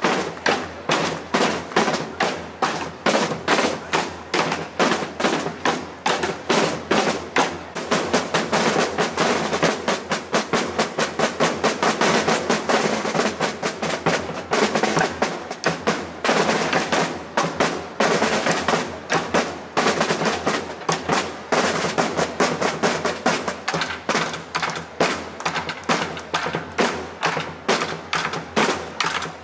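Drums beaten in a fast, steady rhythm of about five or six strokes a second, snare-like and sharp.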